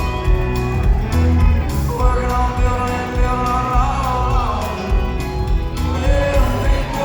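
Country music from a band with a steady drum beat and guitar, a voice singing over it.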